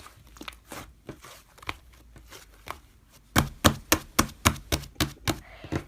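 Slime being pressed and worked by hand: faint crackles at first, then from about three seconds in a quick run of sharp clicks and pops, several a second.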